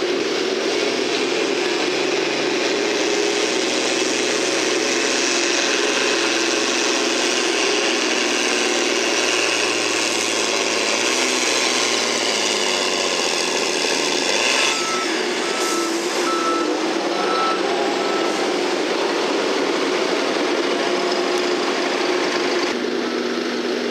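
John Deere farm-stock tractor's diesel engine at full throttle pulling a weight-transfer sled, its pitch slowly climbing, then sagging under the building load and dropping sharply about fourteen seconds in as the pull ends. A reversing alarm then beeps repeatedly.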